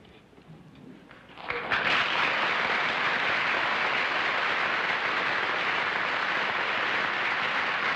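Studio audience applauding. After a near-quiet start, the clapping comes in suddenly about a second and a half in and holds steady.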